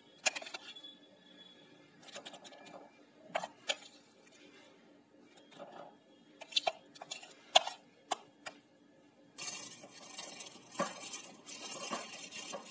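Metal spoon clinking and scraping against a glass bowl and glass while a thick curd mixture is scooped out, with a handful of sharp taps. About three-quarters of the way in, a thin plastic bag starts rustling and crinkling as it is handled.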